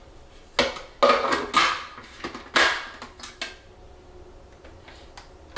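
Plastic food processor parts knocking and clicking as the lid is fitted and the feed-tube pusher set in place: several short clatters in the first three and a half seconds, then only faint room tone.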